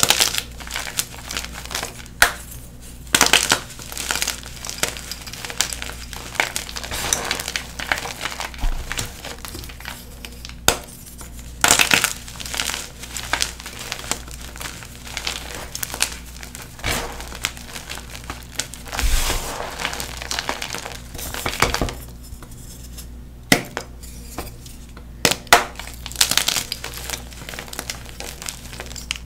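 Blue-dyed NEXO gym chalk block halves crumbling and crunching, in irregular crackly bursts with sharp snaps and an occasional clink.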